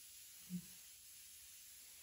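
Near silence: a faint steady hiss, with one short low thump about half a second in.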